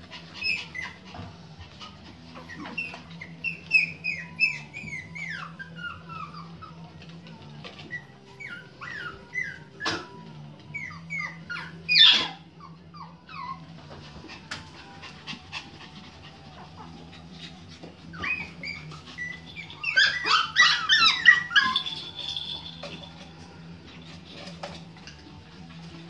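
Pomeranian puppies at play giving short, high-pitched yips and whines, often falling in pitch, in scattered runs, with one sharp loud yelp about twelve seconds in and a burst of many overlapping yips near the twenty-second mark.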